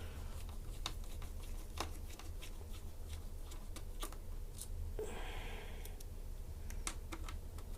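Small screwdriver turning out the laptop's hinge screws: faint, irregular small clicks and ticks, with a brief scrape about five seconds in.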